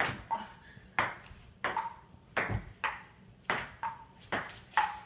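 Table-tennis ball clicking back and forth in a steady rally, struck by the paddles and bouncing on the table, about two to three sharp clicks a second, some with a short ringing ping.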